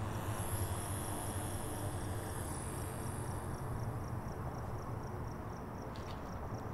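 Crickets chirping in a steady, even rhythm of about four chirps a second over a low steady hum.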